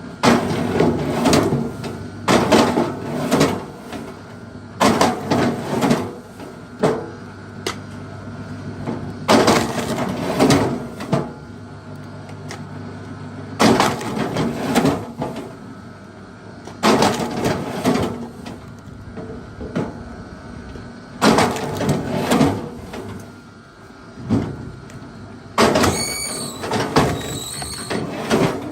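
Big wood being carved with a hand tool in repeated strokes: a burst of cracking and scraping every three or four seconds. A few high chirps come in near the end.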